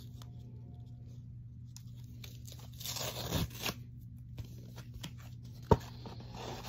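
A paper mailing envelope being torn open by hand, with a tearing rasp about three seconds in, a single sharp tap near the end, and paper rustling after it.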